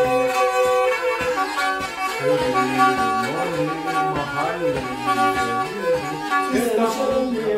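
A Black Sea kemençe bowed in a folk melody, with several strings sounding together as the notes change.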